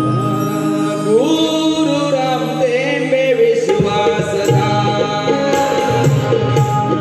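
Live Marathi Shakti-Tura folk music: a man sings over hand drums and steady held instrument tones, his voice sliding up about a second in and turning ornamented in the middle.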